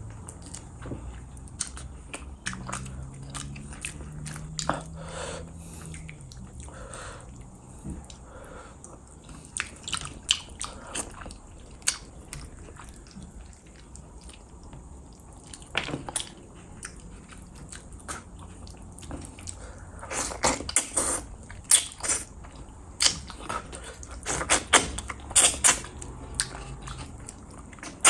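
Wet chewing and lip-smacking from a person eating fish curry and rice with his hand. The smacks are scattered at first and come thicker and louder over the last several seconds.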